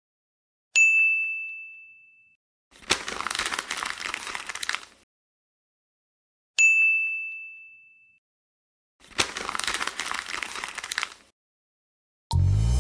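A bright bell-like ding that fades over a second or two, followed by about two seconds of crackly rustling; the pair repeats, and music starts near the end.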